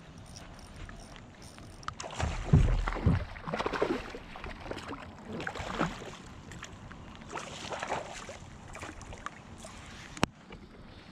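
A hooked bass thrashing and splashing at the water's surface beside a kayak, in irregular bursts from about two seconds in, with a few loud low thumps as the splashing starts. A single sharp click near the end.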